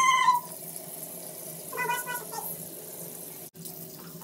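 Two short high-pitched calls, one right at the start and one about two seconds in, over the faint steady hiss of a bathroom tap running.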